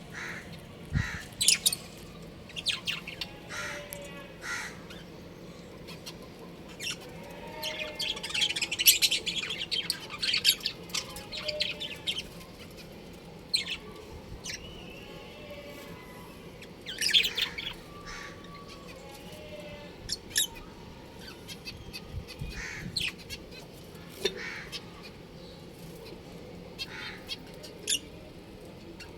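Budgerigars chirping and chattering: short, sharp chirps throughout, with a longer run of rapid warbling chatter from about eight to twelve seconds in.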